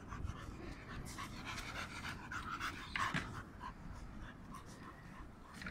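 A dog panting softly in short, uneven breaths.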